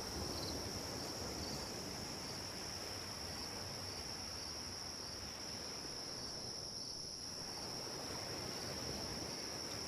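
Ocean waves washing, a steady noise that swells and ebbs slightly, thinning for a moment about seven seconds in. A steady high-pitched cricket chorus sits over it.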